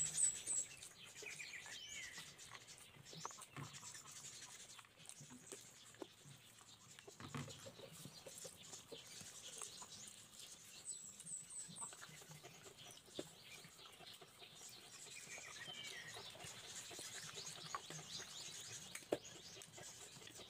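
Quiet eating sounds of a man eating rice and meat with his hands: soft chewing and lip-smacking with small scattered clicks. Birds chirp briefly now and then, including a quick run of three high chirps near the middle.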